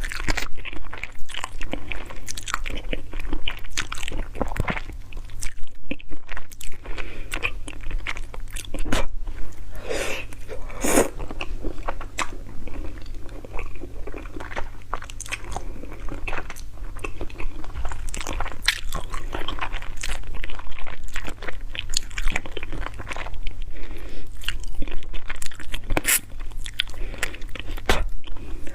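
Close-miked chewing and crunching of stewed frog, with small bones cracking in irregular bites and mouth sounds between them.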